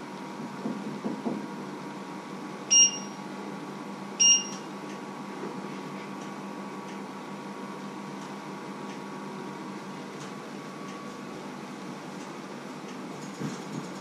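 Two short electronic appliance beeps about a second and a half apart, over a steady low hum.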